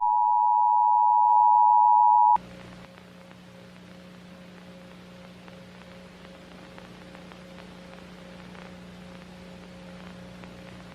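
Emergency Alert System attention signal: a loud steady two-tone beep that starts suddenly and cuts off abruptly after about two seconds. It is followed by a low, steady electrical-sounding hum.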